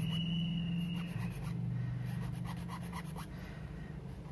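Light, irregular scratching and rubbing as a small plastic action-figure joint part is worked by hand against a thin metal tool, over a steady low hum.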